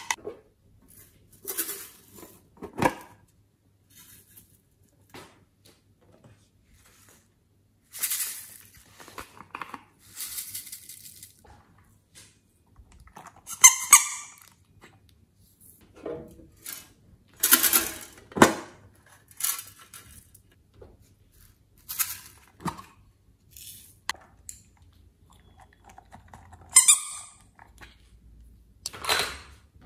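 Separate close-up handling noises around a glass dish of slime toppings: taps, clicks and crinkly rustles, with quiet gaps between them. A rubber spiky squishy toy squeaks as it is squeezed about halfway through and again near the end.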